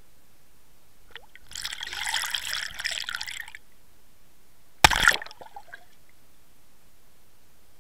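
Water fizzing and crackling past a Water Wolf underwater camera lure for about two seconds. It is followed, about five seconds in, by one sharp knock and a few small clicks on the camera housing as a pike strikes it.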